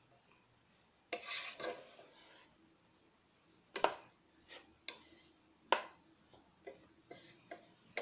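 Wooden spatula stirring broccoli in a pan: a scraping stretch about a second in, then a run of separate sharp knocks and scrapes against the pan.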